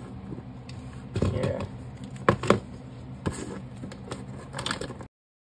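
Small plastic MP3 players being handled and set down on a cardboard-covered surface: a few light clicks and knocks, the sharpest two close together about two and a half seconds in, over a low steady hum. The sound cuts off to silence about five seconds in.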